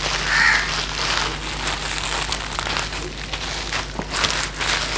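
Plastic courier mailer bag and the bubble-lined packing inside it crinkling and rustling as the bag is pulled open and handled, with irregular crackles throughout.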